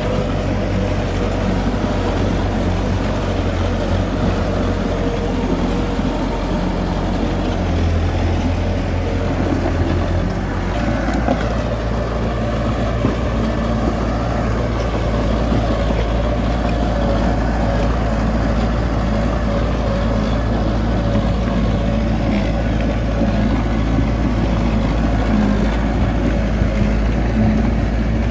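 Heavy diesel machinery engine running steadily, its low note shifting about eight seconds in and again about ten seconds in.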